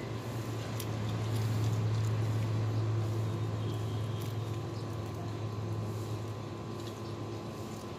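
A low, steady motor hum that swells about two seconds in and slowly fades, with a few faint crunches from kittens chewing shrimp shells.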